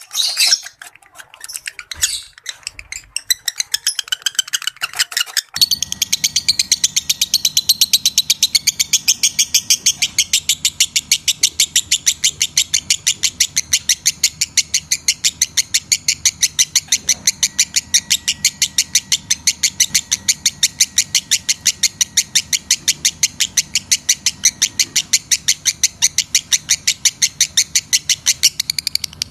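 Lovebird chirping: scattered chirps at first, then from about five seconds in a fast, evenly spaced run of high chirps that keeps going without a break.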